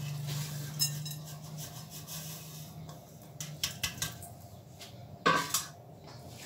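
Shredded kunafa dough rustling as it is tipped from one bowl into a glass bowl and pushed about by hand, with several light clinks of the bowls and a sharper clink about five seconds in. A low hum lies under the first few seconds.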